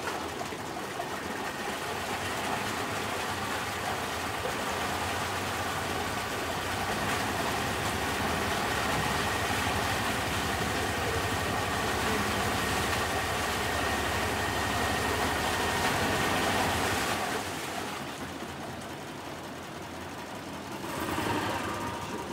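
Honda 40 three-cylinder four-stroke outboard running in a test tank with the propeller churning the water, throttled up and then dropping back about 17 seconds in. The engine runs unevenly, which the mechanics put down to a burnt head gasket on the middle cylinder letting exhaust gas into the cooling system.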